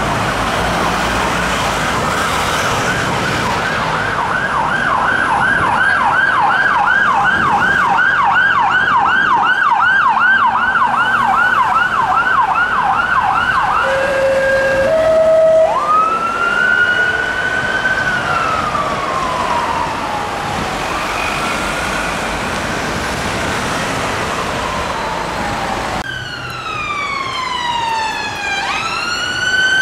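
Metropolitan Police BMW X5 armed response vehicle's siren on a fast warbling yelp, then two short low steady notes, then a slow rising and falling wail. About 26 seconds in, a different siren takes over: an ambulance's wail (West Midlands Ambulance Service Fiat Ducato) sweeping down and back up.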